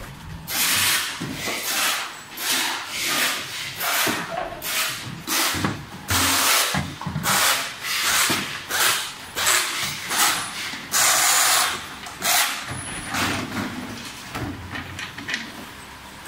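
Pneumatic screwdrivers driving screws on an assembly line: one short burst of air hiss after another, at uneven intervals.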